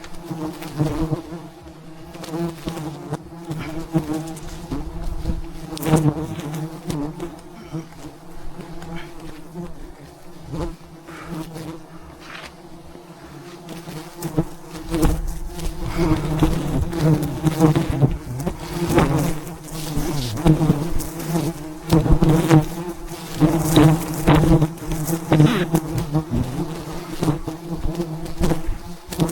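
A swarm of wild honeybees buzzing steadily around a hive being harvested, with frequent knocks and clicks on top. The buzzing and knocking grow louder and busier about halfway through.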